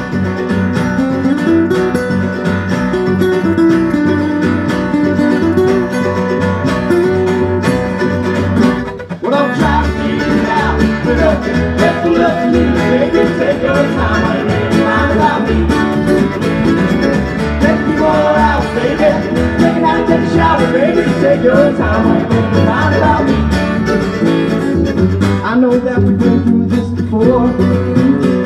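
A live country string band playing: upright bass, electric and acoustic guitars and mandolin. The sound drops briefly about nine seconds in, then comes back fuller with busier lead lines.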